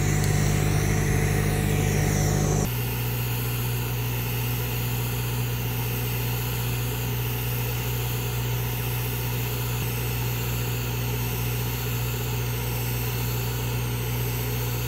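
Steady machine hum with a hiss during TIG welding of a cap pass on steel pipe, typical of a job-site welding rig running while the arc burns. The hum drops and quietens abruptly about three seconds in, then holds steady.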